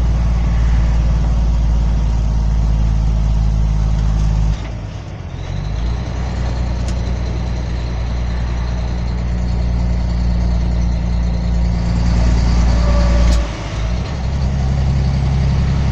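Truck engine running at highway speed, heard from inside the cab as a steady low drone. The engine sound drops away briefly about four and a half seconds in and again near the end, then picks up again.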